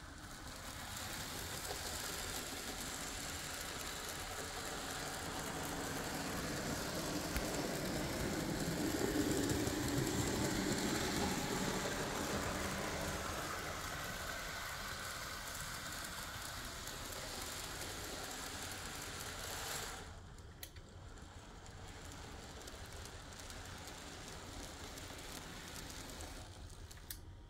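Märklin Z-scale 4-6-0 model steam locomotive running its freight train around the layout track: a small electric motor whirring, with the rattle of the wheels on the rails. It grows louder to a peak about ten seconds in and drops off sharply about twenty seconds in, leaving a fainter sound.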